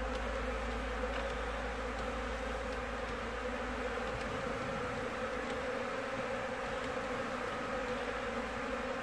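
A honeybee colony buzzing at its nest: a dense, steady hum of many bees, holding one pitch.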